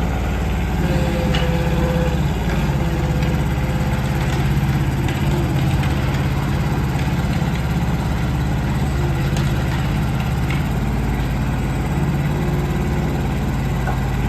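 Kobelco SK09SR mini excavator's diesel engine running steadily, with a brief high whine about a second in.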